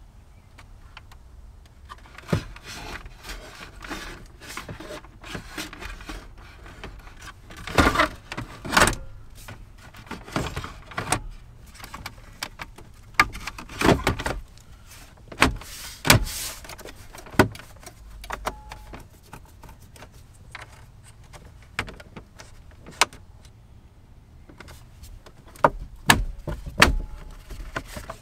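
Irregular clicks, knocks, clunks and rattles of car parts being handled and fitted by hand, with a few louder knocks scattered through.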